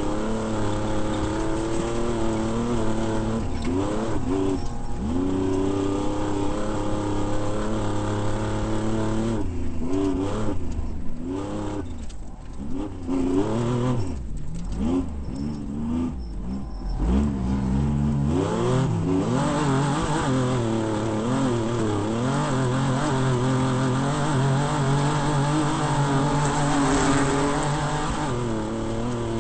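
Off-road desert race vehicle's engine running hard, its pitch rising and falling with the throttle. Through the middle of the stretch the revs repeatedly dip and surge, then it settles into a steadier note.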